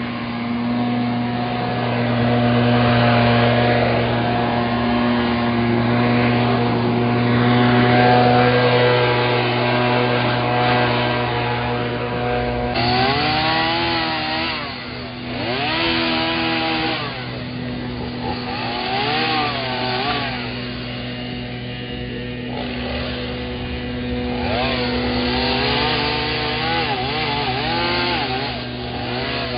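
A small gas engine on a handheld power tool runs at speed, holding a steady pitch at first. About halfway through, its pitch starts wavering up and down as the throttle is worked and the tool takes load.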